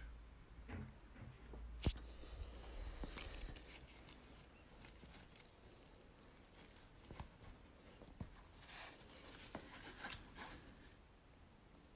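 Faint handling noise of a soft bucket bag and its pochette: rubbing of the material and light clicks of the strap hardware, with one sharper click about two seconds in.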